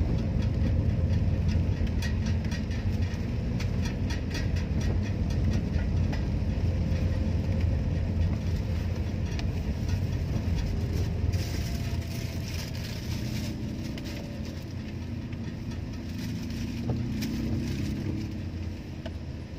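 Car cabin noise while driving in rain: a steady low rumble of engine and tyres on a wet road, with many small ticks of raindrops on the windscreen. About eleven seconds in there is a brief rise in hiss.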